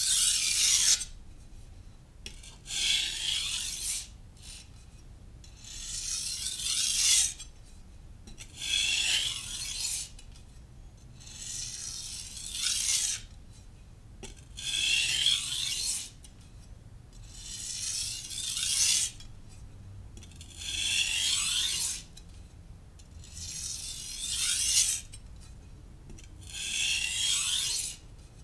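Knife blade being stroked across a wet Naniwa Professional (Chosera) 600-grit whetstone, a gritty rasp with each pass. There are about ten even strokes, one every two to three seconds.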